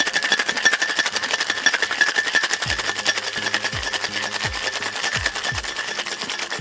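Ice rattling inside a metal cocktail shaker that is shaken hard and fast, a continuous rapid clatter with a ringing metallic edge.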